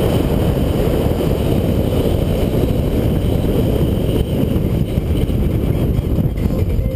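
BMW 328i driving hard through an autocross course, its engine and tyres heard under heavy wind buffeting on a hood-mounted camera's microphone. The noise eases slightly about four seconds in as the car comes off the course.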